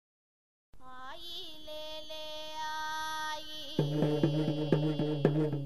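Total silence for under a second, then a female voice holds one long sung note of a Tamil Amman devotional song, and a little before the end the drums of an urumi melam ensemble come in with a quick, steady beat.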